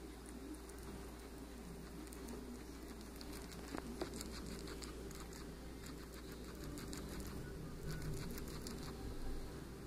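Guinea pig chewing carrot tops: a run of small, crisp crunching clicks and rustling of the leafy fronds, over a faint steady hum.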